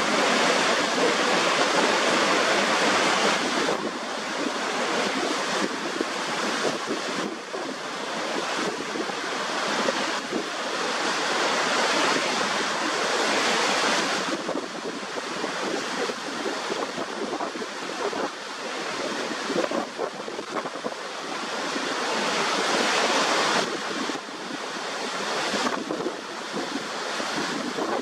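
Niagara Falls pouring over its brink: a steady, loud rush of falling water, its level dropping sharply about 4 and 14 seconds in.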